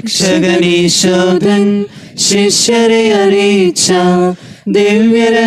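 A man singing a Malayalam communion chant unaccompanied, in held phrases broken by short pauses.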